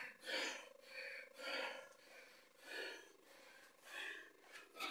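A boxer's short, sharp hissing exhales, about six of them, each forced out with a punch.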